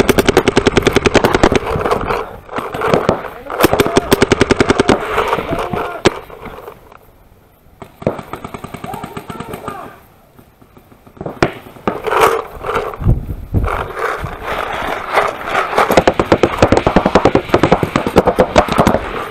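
Paintball markers firing rapid strings of shots, with brief lulls between volleys.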